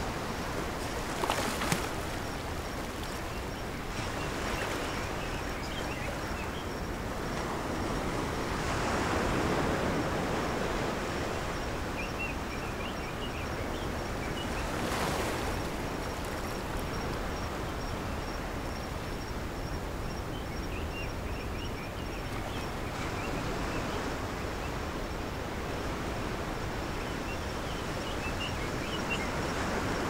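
Ocean surf: small waves breaking and washing onto a beach as a continuous rushing hiss that swells louder about a third of the way in and then eases.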